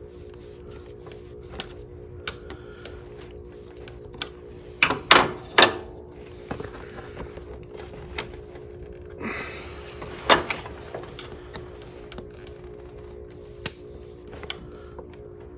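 Irregular clicks, taps and knocks of hands and tools working a stuck plastic electrical connector with a locking tab, including a brief scraping rustle about nine seconds in. A steady hum runs underneath.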